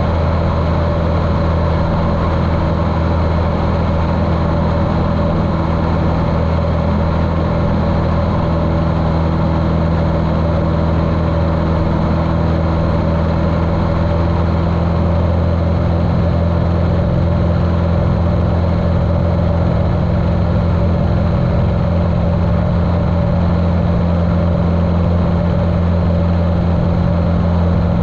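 Continental O-200 four-cylinder engine of a Cessna 150L running steadily in flight, a strong low drone with a propeller hum. It sounds muffled through a GoPro waterproof case.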